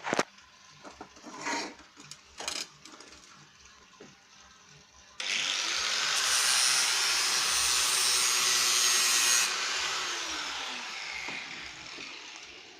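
A few sharp knocks on metal, then an angle grinder starts suddenly about five seconds in and runs loudly on the car's sheet-metal body for about four seconds. It switches off and its disc spins down over the next few seconds.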